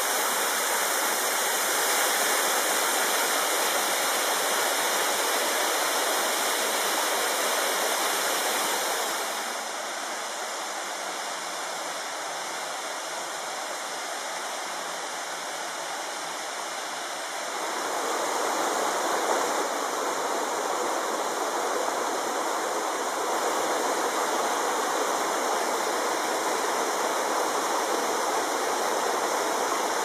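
Steady rush of water from a mountain waterfall and rocky stream. About ten seconds in it turns quieter and duller, and about eighteen seconds in it comes back up fuller.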